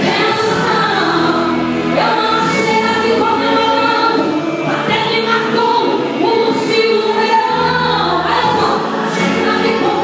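Live gospel worship song: a woman sings lead into a handheld microphone over instrumental accompaniment with held low notes, and many voices join in.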